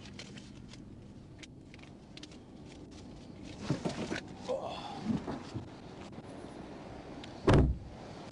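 A car door shut with one heavy thud near the end, after a few seconds of clicks and rattling as someone gets out of the car.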